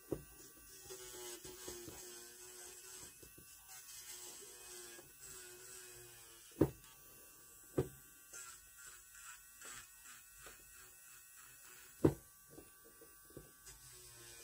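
Handheld electric nail drill (e-file) running with a steady motor whine that wavers slightly as the bit works around the cuticle of a gel-polished nail. A few sharp knocks stand out, the loudest near the end.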